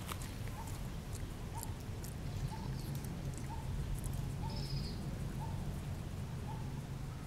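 A short animal call repeated evenly about once a second, over a low steady hum.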